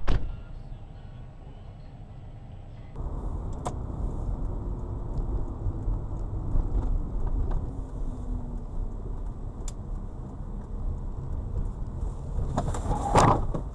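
Steady low road and engine rumble of a moving car heard from inside the cabin by a dashcam. There is a sharp thump right at the start and a louder, brief crash-like clatter near the end.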